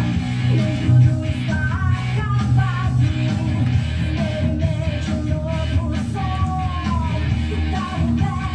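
Rock song playing, with band accompaniment and a voice singing a wavering melody line.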